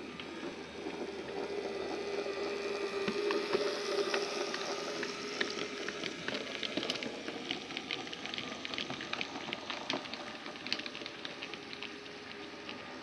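Bachmann model Class 08 shunter's small electric motor whining, with its wheels and those of the chemical tank wagons clicking over rail joints and pointwork as it runs past. The whine is steady in the first few seconds, then gives way to a run of irregular sharp clicks that thin out near the end.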